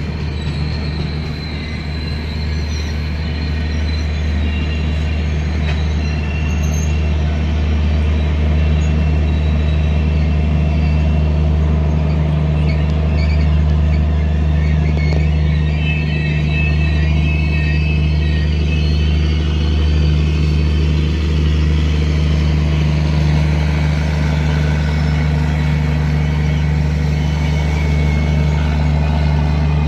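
Train running along the track: a steady, loud rumble that builds slightly over the first few seconds and then holds, with faint high squeals coming and going above it.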